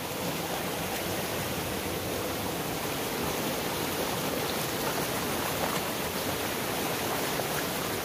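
Mountain stream rushing over boulders and small cascades: a steady, unbroken rush of water.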